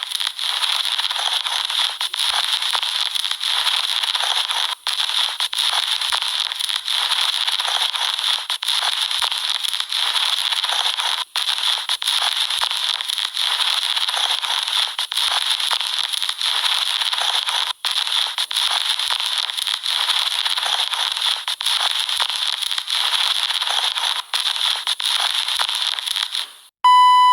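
Steady crackling, hissing static that cuts out for an instant a few times. A short, loud, buzzy beep comes in near the end.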